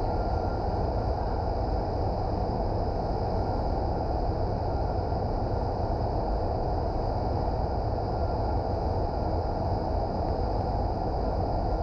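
Steady rushing roar of the airflow in an indoor skydiving vertical wind tunnel running at flying speed, with a faint steady high whine above it.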